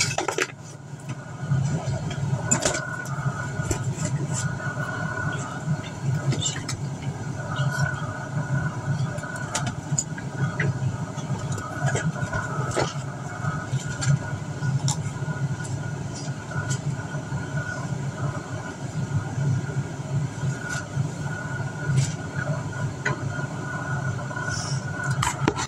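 A steady low machine-like hum that flutters a little, with scattered small clicks and knocks over it.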